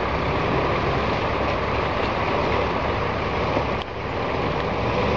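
Off-road 4x4 engine running steadily as the vehicle drives slowly over a muddy track, under a dense, even noise. The sound briefly drops a little under four seconds in.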